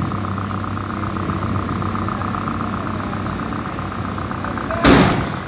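Heavy diesel machinery running steadily: a low engine drone with a fine, rapid pulsing. A short loud burst of noise cuts in about five seconds in.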